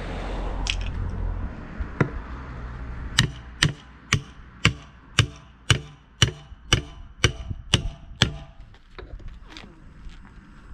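Hammer blows on the steel split rim of a Gaz66 truck wheel, about a dozen sharp strikes at about two a second with a metallic ring, working round to break the tyre bead where it has rusted onto the rim.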